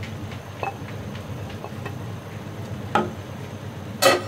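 A spoon knocking against a metal cooking pot: a few light clicks, then a loud clank with a short ring about four seconds in as the spoon goes in to stir. A steady low hum runs underneath.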